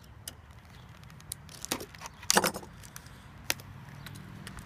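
Stiff plastic blister packaging crackling and snapping as it is cut and pried open with a utility knife, in scattered clicks with the loudest crinkling about two seconds in. A low steady rumble of road traffic runs underneath.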